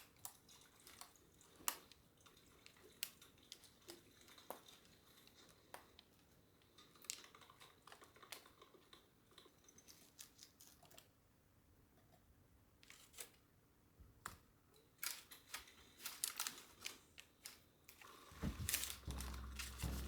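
Faint, irregular small clicks and taps, a few a second at most, over a quiet hiss; music comes in near the end.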